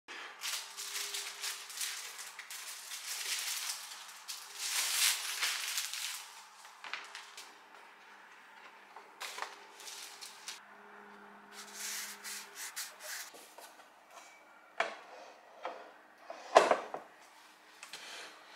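Pastel pencil scratching across paper in runs of strokes. Near the end come a few sharp knocks, the loudest about three-quarters through, as a canvas pad is handled against a wooden tabletop easel.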